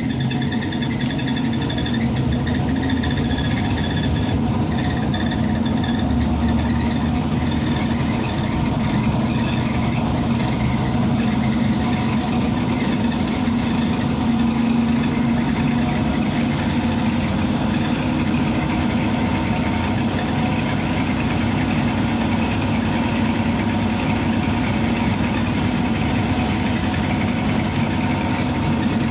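Cabin noise inside a BKM 321 trolleybus: a steady hum of its electric drive and running gear, holding several level tones. There is a brief hiss about seven seconds in.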